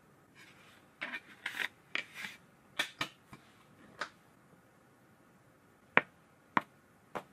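Phone case being taken off and fitted onto an Asus Zenfone 10 by hand, with quick rubbing, scraping and clicking from about one to four seconds in, then three separate sharp clicks near the end as the case snaps into place.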